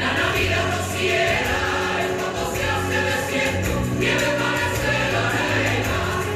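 Music with a chorus of voices singing over a steady bass line.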